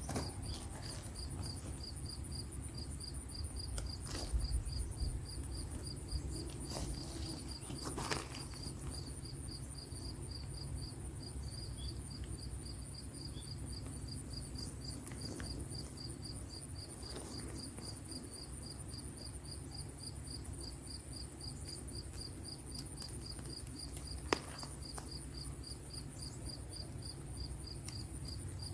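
Crickets chirping in a steady, evenly spaced high-pitched rhythm that doesn't let up, over a low outdoor rumble, with a few faint knocks and clicks from hands working in soil.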